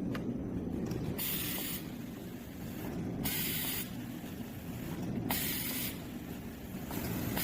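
Rotary automatic pouch-packing machine running with a steady low mechanical rumble, and a short hiss about every two seconds, four times, as it cycles.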